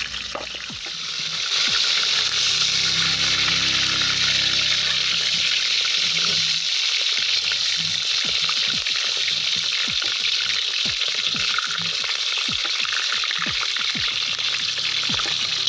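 Whole peeled potatoes deep-frying in hot oil in a cast-iron kazan: a steady, loud sizzle, swelling about a second and a half in, with dense crackling pops through the second half.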